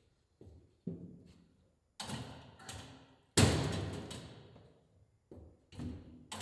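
A wheeled cotton candy cart clunking down stair steps one at a time in a tiled stairwell. It makes a series of heavy knocks, each ringing on with a long echo, and the loudest comes about halfway through.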